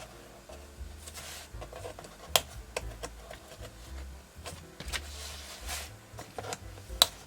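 Packaging being opened and handled by hand: bursts of rustling with a few sharp clicks and taps, the loudest click near the end.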